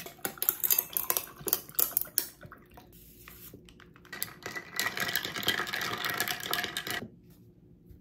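Ice cubes clinking into a glass as they are scooped in, a quick run of sharp clinks over the first couple of seconds. Then a stirrer swirls the ice around in a glass of kombucha, a steady rattling clink for about two seconds that stops abruptly.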